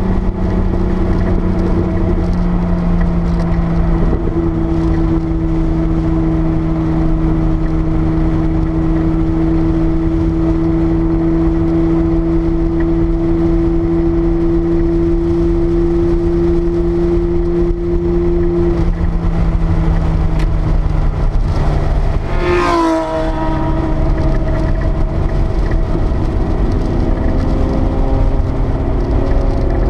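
Porsche 930 Turbo's turbocharged air-cooled flat-six engine running under load, heard from inside the cabin. Its note holds steady, sagging slowly, then drops sharply about two-thirds of the way through, as at a gear change, and climbs steadily again as the car accelerates.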